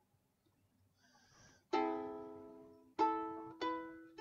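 Three plucks on a small string instrument, the first about a second and a half in and the others near the end, each ringing out and fading.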